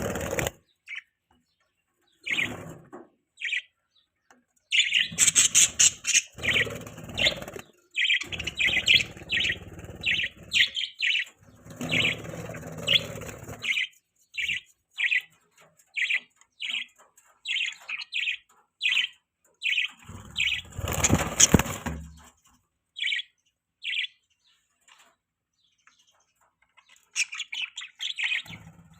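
Budgies (budgerigars) chirping in a string of short, high chirps, with a steady run of evenly spaced chirps in the middle. Several louder, busier stretches have noise reaching down low.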